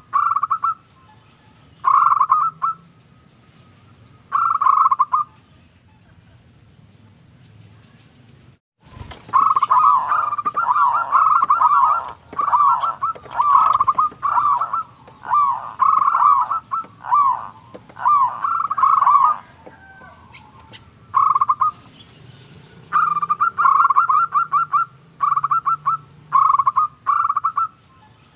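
Zebra dove (perkutut) cooing: short phrases of quick pulsed notes, each held near one pitch, repeated again and again. A few seconds of quiet break the calling after the first phrases, followed by a long, close-packed run of phrases.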